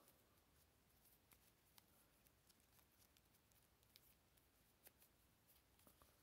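Near silence with a handful of faint clicks and taps, from a plastic action figure being handled and its strap worked at with knit-gloved fingers.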